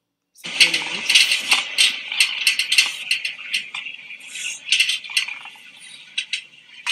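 Aggressive English bulldog biting and gnawing at the bars of a metal gate: a rapid run of clacks and metallic rattles, starting about half a second in and densest over the first few seconds.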